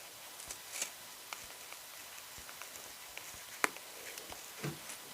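Faint scattered clicks and crinkles of paper and card as a sticker seal is slowly peeled off an album folder, with one sharper click about three and a half seconds in.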